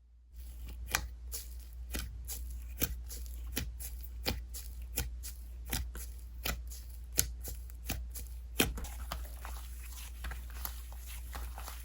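Slime being worked by hand, making sharp popping clicks at about two to three a second, which give way to a softer, busier crackle near the end.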